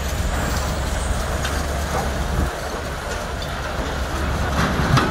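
Scrap yard machinery, a grapple material handler among it, running with a steady low diesel rumble while scrap metal is dropped, making scattered clanks and bangs. The loudest clank comes near the end.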